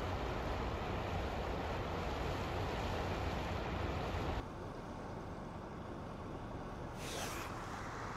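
Steady rushing wash of a shallow river running over rocks. About halfway through it drops abruptly to a quieter, thinner wash, and a brief hiss comes near the end.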